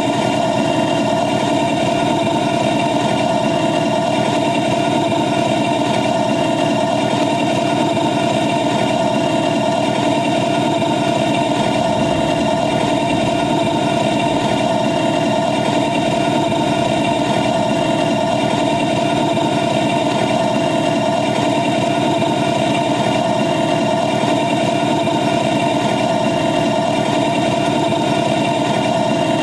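A 7½-inch gauge ride-on miniature train under way, its engine running with a steady drone that holds the same pitch and loudness throughout.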